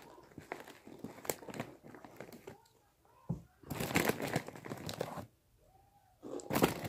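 Crinkling of a Takis snack bag as a hand reaches into it, loudest about halfway through, with crunching of the rolled tortilla chips being bitten and chewed near the end.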